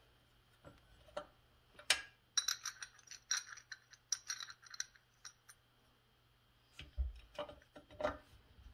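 Light metallic clinks and ticks as a chainsaw's clutch drum and sprocket are handled and fitted onto the crankshaft, mostly in the middle, with a few dull knocks near the end.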